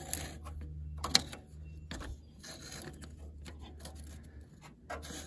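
A hand twisting and working at a stuck metal radiator cap: a few sharp clicks and scrapes, the sharpest about a second in, over a low steady rumble.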